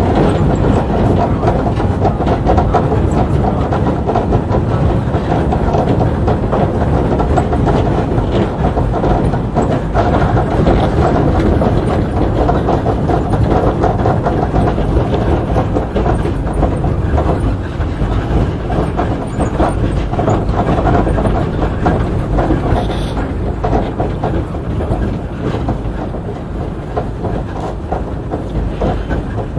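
Moscow Monorail car running along its elevated beam, heard from inside the car: a steady low rumble of its rubber tyres with constant rattling and jolts. The noise eases off slightly near the end.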